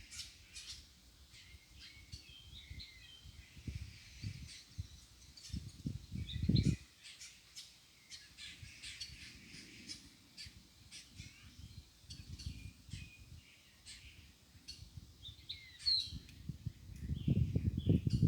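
Small birds chirping in short, high calls throughout. Low rustling thumps come about six seconds in and again near the end, and these are the loudest sounds.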